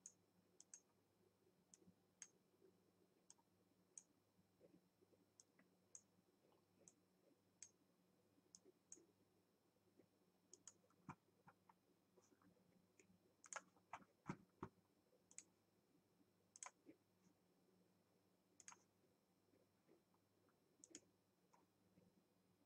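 Faint, irregular computer mouse clicks, spaced a second or so apart and bunched closer together about two thirds of the way through, over a low steady electrical hum.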